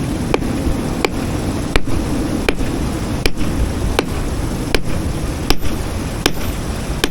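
Hammer tapping a rock nodule in a steady rhythm, about ten sharp strikes, one every three-quarters of a second, to split it open and see if an ammonite is inside. Wind rumbles on the microphone underneath.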